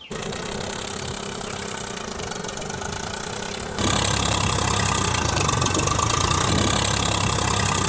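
Small DC mini water pump motor running with a steady buzzing hum, stepping up to a louder, brighter sound about four seconds in.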